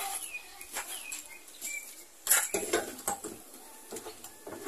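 Light clicks, knocks and scraping of a threaded plumbing fitting being worked and tightened into a plastic jerrycan water tank, with a sharper knock about two seconds in.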